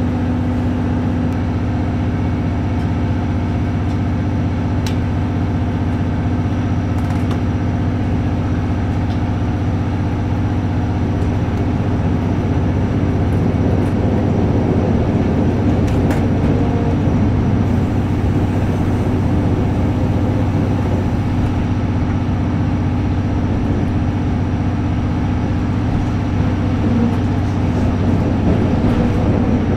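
Steady low hum of a diesel train's engine running while the train stands. The noise grows rougher and slightly louder from about twelve seconds in.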